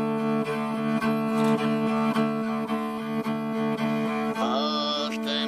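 Background music: long held low notes, with a higher wavering melody line coming in near the end.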